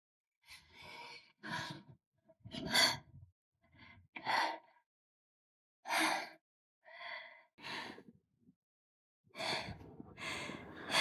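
A person breathing heavily: a string of about ten short sighs and gasps, each separated by dead silence.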